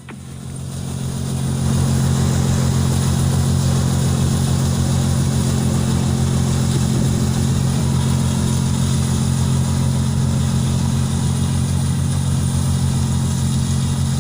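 John Deere 5045D tractor's three-cylinder diesel engine running steadily. It swells up over the first couple of seconds and then holds an even, low engine note.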